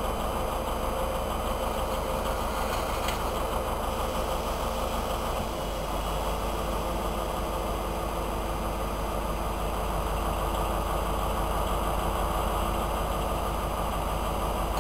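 DB class 294 diesel shunting locomotive idling steadily, a constant engine drone with a low hum.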